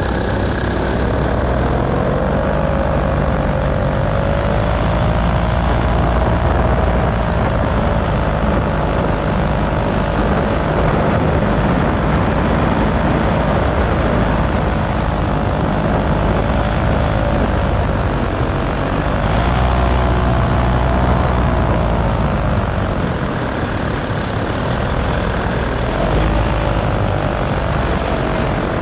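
Paramotor engine and propeller running continuously, the engine pitch drifting gently up and down and briefly rising about twenty seconds in.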